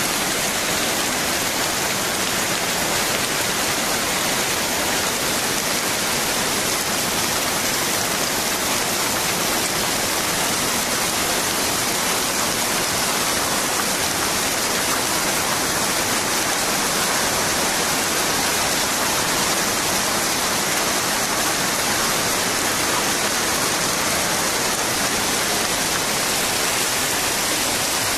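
Hailstorm: hailstones falling thickly and pattering on the ground and surroundings as a dense, steady hiss.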